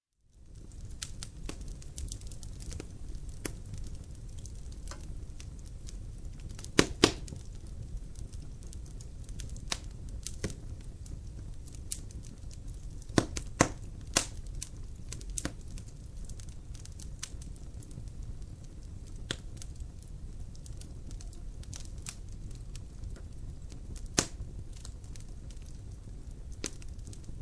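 Wood fire crackling in a fireplace: a steady low rumble of flames with scattered sharp pops. The loudest pops come as a quick pair about seven seconds in, a cluster around thirteen to fourteen seconds, and a single pop near twenty-four seconds. The sound fades in from silence at the very start.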